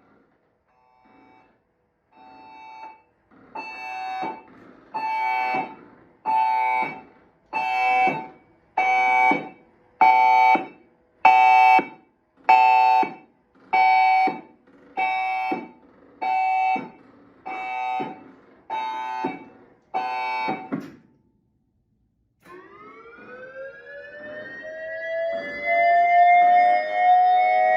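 Dual-tone ACA Alertronic AR-1600 electronic siren sounding its Horn signal as a long run of regular blasts, about one every 1.25 s, faint at first and then loud. After a pause of about a second and a half it starts its Fire signal, a two-tone wail that rises in pitch and then holds.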